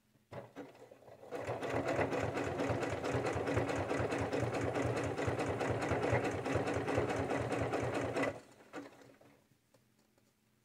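Janome sewing machine with a walking foot sewing a zigzag stitch through thick fabric layers: a few slow stitches, then several seconds of rapid, even stitching, easing off to a few last stitches and stopping near the end.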